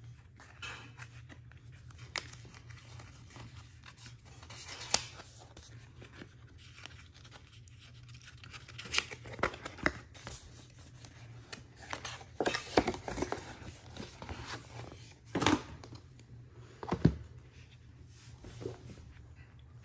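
Apple Watch cardboard packaging being opened by hand: the paper pull tabs tearing and the card sleeve being pulled and folded, heard as scattered short ripping and snapping sounds over a steady low hum. They come in clusters, busiest from about halfway through.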